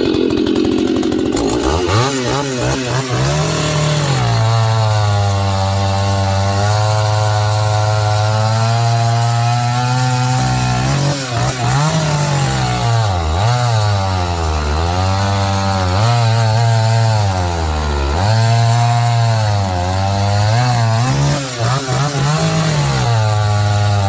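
Husqvarna 162SE two-stroke chainsaw running. It revs up over the first few seconds and holds at high revs for several seconds. It is then revved up and down over and over, about every two seconds.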